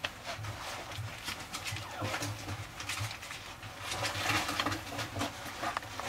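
Puppy giving soft low grunts over and over while play-biting a hand, with quick small clicks and rustles of its mouth and paws.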